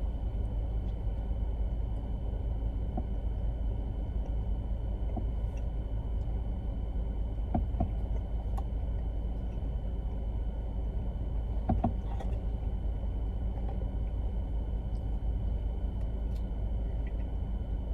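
Steady low rumble of a car's idling engine heard inside the cabin, with a few faint clicks.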